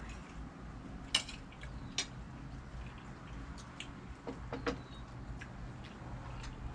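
A metal spoon clicking a couple of times against a plate, then a few light knocks as the plate is set down on a wooden railing, over a low steady background rumble.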